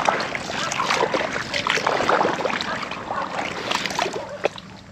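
Footsteps wading through shallow water over soft mud, an irregular run of splashes and squelches that dies down near the end.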